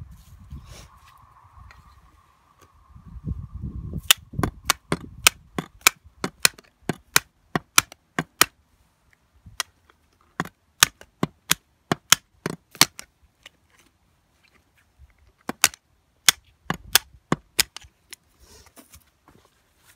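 Hammer striking the back of a steel blade held against juniper stump roots to cut them. Sharp metallic strikes, irregular at roughly two a second, starting about four seconds in, with a short pause in the middle.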